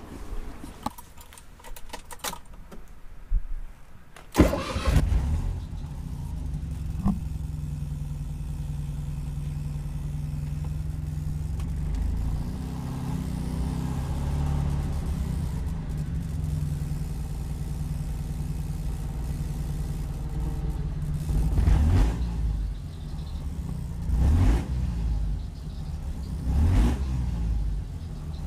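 A few clicks, then the Honda Life's water-cooled four-stroke inline two-cylinder engine with twin carburettors starts about four seconds in, on the first try, and settles into a steady idle. Near the end it is revved three times in short blips, through a somewhat loud one-off exhaust.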